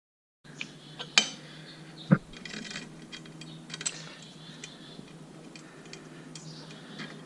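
Small metal parts and a socket tool clinking and tapping against a lawn mower engine as the ignition coil is handled. The sound is scattered light clicks with two sharper knocks about one and two seconds in, over a low steady hum.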